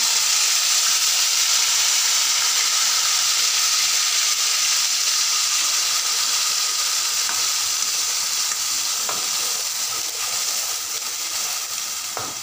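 Ground onion paste hitting hot oil and cumin seeds in a kadhai, sizzling loudly and steadily, then easing off slowly as the paste spreads. There are a few faint clicks of a steel ladle stirring in the pan in the second half.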